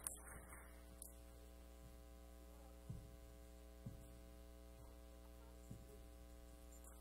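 Near silence filled by a steady electrical mains hum, with a few faint, soft low thumps about three, four and six seconds in.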